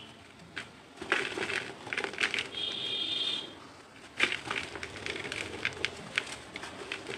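Dry white cement chunk crumbling in the hand: gritty crunching and crackling in irregular bursts, with crumbs and powder dropping into a plastic bowl. A brief high squeak comes about three seconds in, and a sharp crack a little after four seconds is the loudest moment.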